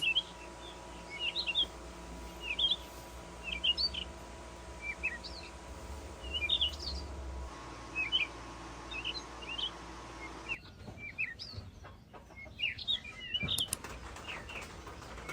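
Small birds chirping: short, repeated high chirps over a faint low background hum that drops away about ten seconds in.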